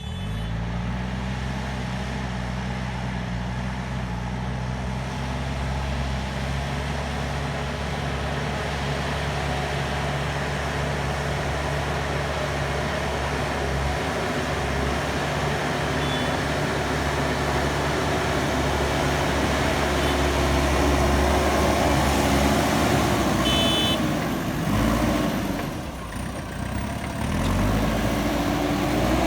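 Backhoe loader's diesel engine running steadily under work. Near the end it drops briefly, then revs up again.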